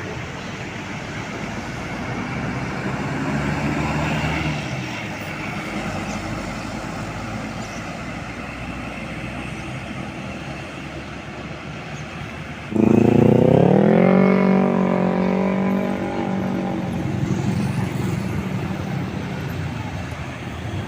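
Motor vehicle noise. About 13 seconds in, a louder engine sound starts suddenly, rises in pitch and then holds steady as it slowly fades.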